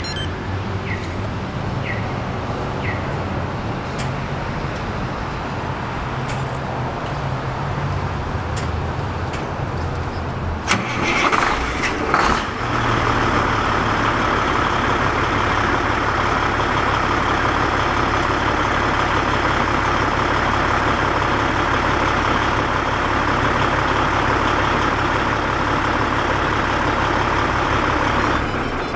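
Peterbilt semi truck's Caterpillar diesel engine started by a Viper 5902 remote starter: it cranks and catches about eleven seconds in, then settles into a steady idle. A few short high chirps sound in the first seconds.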